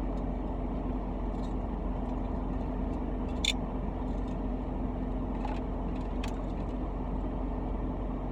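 A car's steady engine hum and rumble heard from inside the cabin, with a few light clicks, the sharpest about three and a half seconds in.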